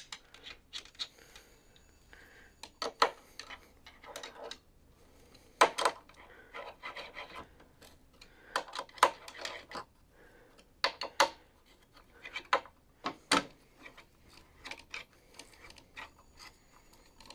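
Hand screwdriver driving screws into the metal turntable plate of a tennis stringing machine: irregular metal clicks and short scraping turns.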